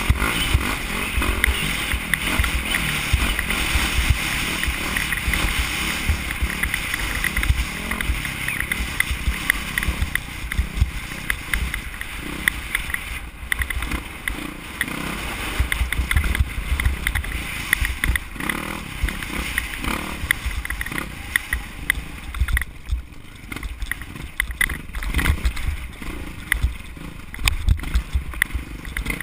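Off-road motorcycle engine running hard at speed, with heavy wind buffeting on the helmet camera's microphone and scattered knocks from the rough trail. The engine eases off briefly about three quarters of the way through.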